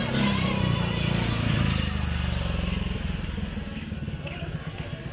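Street ambience dominated by a motor vehicle's engine running close by, its low rumble easing off over the last couple of seconds, with passers-by's voices in the background.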